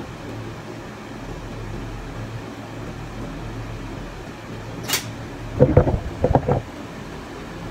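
Handling noise from a metal scissor-arm microphone stand and shock mount: a sharp click about five seconds in, then a quick cluster of knocks and clatters about a second later. A steady low hum runs underneath.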